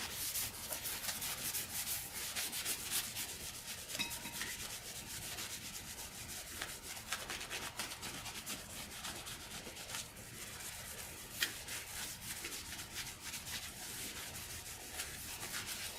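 Paper towel rubbing and wiping a surface wet with contact cleaner, a steady scratchy scrubbing made of many quick strokes.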